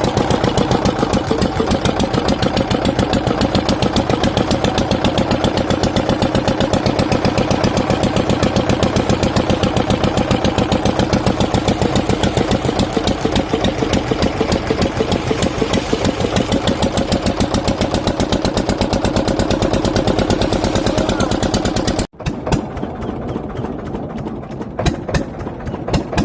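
Wooden fishing boat's engine running with a fast, even beat, loud and close. About 22 seconds in it cuts off abruptly, leaving quieter sound with a few sharp knocks.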